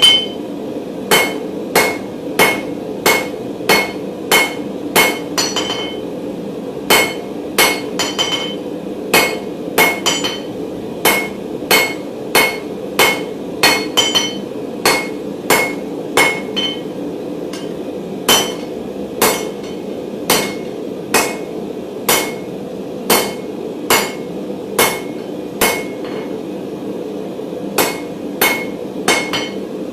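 Hand hammer blows on hot 16 mm mild steel bar over an anvil, drawing the round bar out square: strikes at about two a second in runs with short pauses, each blow ringing briefly. A steady low hum runs underneath.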